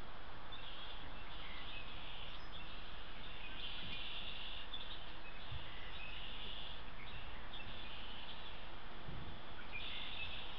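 Steady outdoor hiss with a songbird repeating short high trills, each about half a second to a second long, every second or so.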